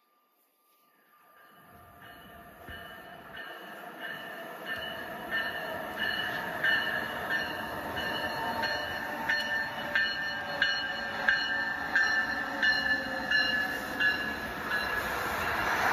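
LEGO toy train running on plastic LEGO track: a steady small-motor whine with regular clicks, about one and a half a second, as the wheels cross the track joints. It grows louder as the train draws near.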